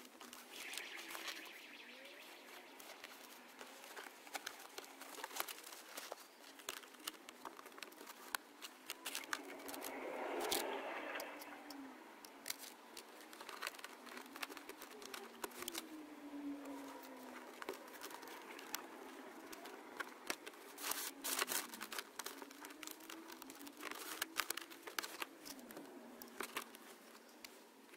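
Faint handling noises: foam padding and wiring rustling and scraping, with scattered small clicks of plastic trim, as cables are worked under the gear-lever surround of a car's centre console. A louder rustle comes about ten seconds in.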